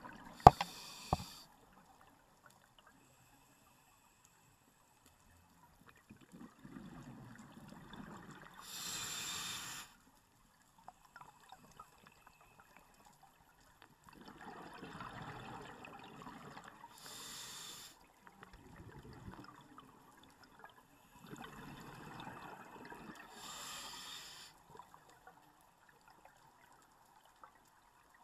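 A scuba diver breathing underwater through a regulator: three breaths about seven seconds apart, each a stretch of bubbling gurgle and a brief bright hiss. Two sharp clicks come near the start.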